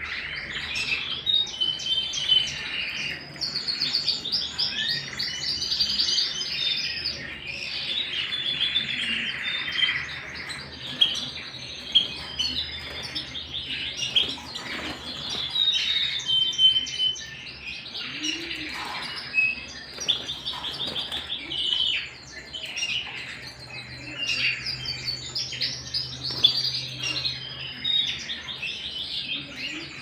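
Domestic canaries singing in a cage: long, continuous song of rapid rolling trills and warbled phrases, with short pauses between runs.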